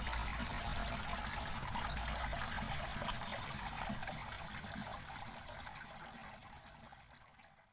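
Water running steadily through a hydroponic system of PVC pipes, with a low rumble underneath that stops about two seconds in. The water sound fades out over the last two or three seconds.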